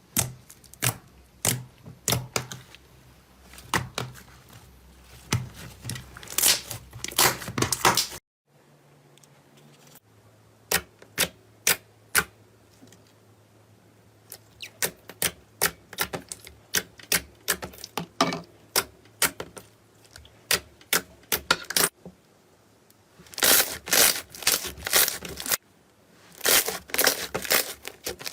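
Slime being pressed and squeezed by hand, making rapid sharp clicks and pops. The clicks come in dense runs, sparser and quieter in the middle, changing abruptly twice where one clip cuts to the next.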